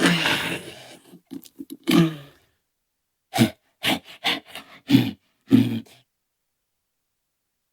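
Cartoonish mummy creature vocal sound effect: a longer guttural growl, then a string of short grunts and growls in quick bursts that stops about six seconds in.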